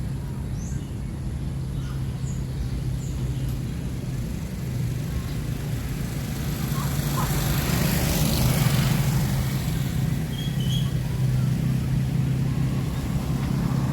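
Road traffic: a steady low engine hum, with a vehicle passing that grows louder to a peak about eight seconds in and then fades.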